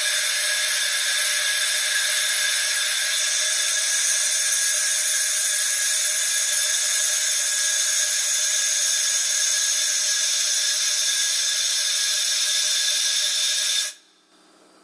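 Steady, loud hiss of compressed air exhausting from a locomotive's 6BL automatic brake valve as a brake application is made; it cuts off sharply near the end. The equalizing reservoir pressure falls, but the brake pipe barely follows, the fault being traced in this brake system.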